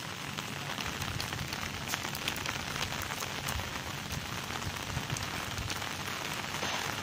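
Heavy rain falling steadily: a dense, even hiss scattered with frequent sharp ticks of drops striking nearby.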